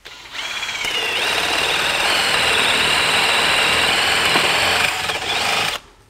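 Electric hand drill running a wood spade bit into a wooden beam, boring a countersink hole: a steady motor whine over the rasp of the bit cutting wood. It starts just after the beginning, settles in pitch within the first second, and stops suddenly near the end.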